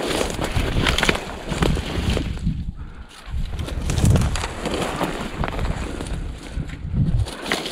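Footsteps crunching through dry grass, brush and thin snow, about one step a second, with stems swishing against clothing and wind rumbling on the microphone.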